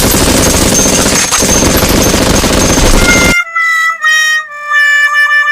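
A loud, dense rattling noise for about three seconds, which cuts off abruptly. It gives way to a short tune of held, whistle-like notes stepping downward, the last note wavering.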